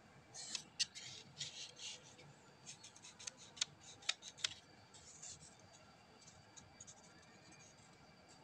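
Hands handling a plywood toy gun: faint scrapes and rubbing of wood, with a few sharp clicks, mostly in the first half.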